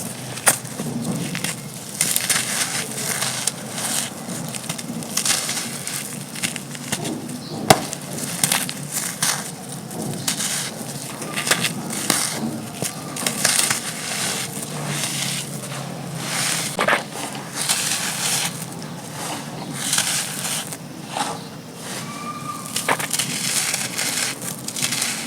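Dry, gritty sand-cement chunks crunching and crumbling: a continuous run of crackly crunches with a few sharp snaps.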